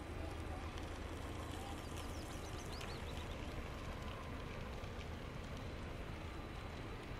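Distant SM42 diesel shunting locomotive hauling a train of loaded coal wagons, a steady low engine drone with the wagons rolling along the track. A few high bird chirps come about two to three seconds in.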